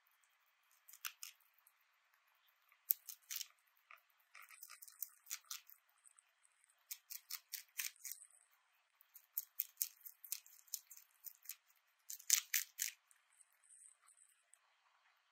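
A pet rabbit biting and chewing a crisp pale green vegetable leaf held out by hand: rapid crisp crunching in bursts of a second or two, with short pauses between bites.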